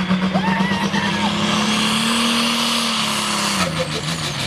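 Case IH Magnum super stock pulling tractor's turbocharged diesel engine running hard down the track, with a high turbo whistle and hiss over the engine. The engine pitch climbs slightly about two seconds in and drops away near the end.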